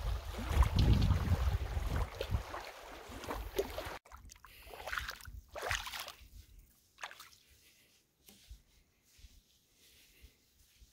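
Water sloshing and trickling around a kayak, with paddle splashes and wind rumbling on the microphone. The sound drops off suddenly about four seconds in, leaving a few faint splashes and then near quiet.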